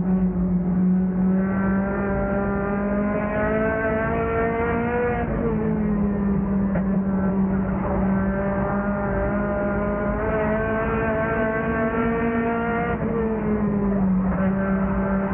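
Race car engine heard from inside the car under racing throttle, its revs climbing slowly and then falling off twice, about five seconds in and again near the end.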